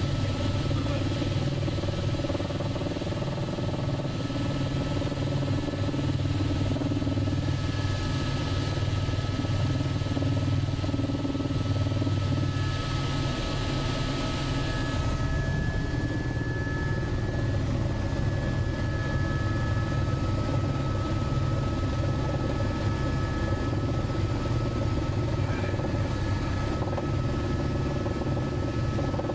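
Steady drone of a helicopter's engine and rotor, a low hum with a thin, steady high whine above it.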